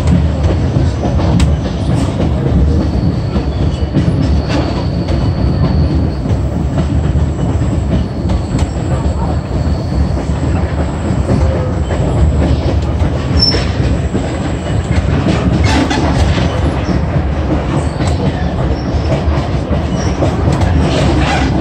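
Passenger train running along the track: a steady low rumble of wheels on the rails with scattered rail-joint clicks, and a faint high wheel squeal for several seconds in the first half.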